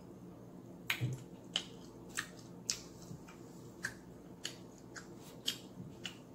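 Eating with the fingers at close range: about a dozen sharp, wet clicks and smacks at an uneven pace of roughly two a second, over a faint steady hum.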